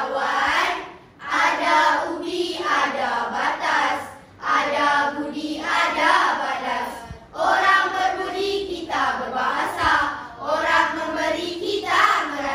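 A children's chorus chanting rhythmic verse in unison, voices held on pitch, in phrases a couple of seconds long broken by brief pauses.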